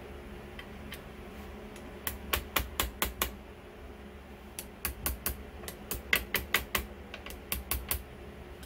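Small ball-peen hammer tapping lightly on an open-end wrench set on an outboard water pump housing around the driveshaft, driving the part down into its seat. The taps come in four quick runs of about four to seven strikes each, about four a second, over a low steady hum.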